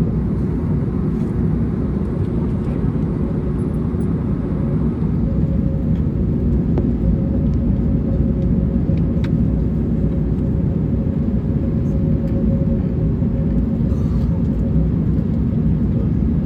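Steady cabin rumble of an Airbus A321neo on the ground before takeoff, engines at idle, with an even hum over it and a few faint clicks.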